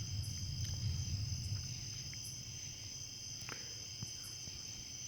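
Steady, unbroken chorus of crickets singing at night. Under it a low rumble, loudest in the first second and a half, and a few faint clicks.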